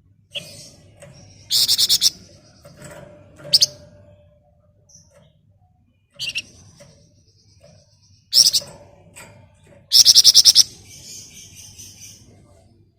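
Flamboyan bird singing. Twice it gives a dense rattling trill (ngebren), once about 1.5 s in and once about 10 s in. Short sharp high calls and a thin whistle come between the trills.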